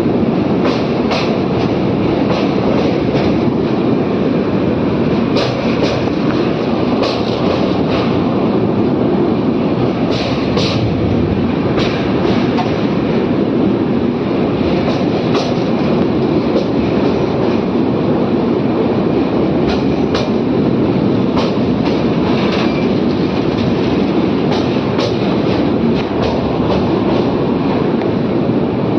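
Train running at speed: a steady rumble with irregular sharp clicks and clacks from the wheels over the track.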